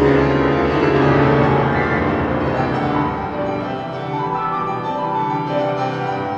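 Grand piano played solo in a folk-style piano piece, full chords over a heavy bass. About halfway through the low bass notes thin out and the playing gets a little softer.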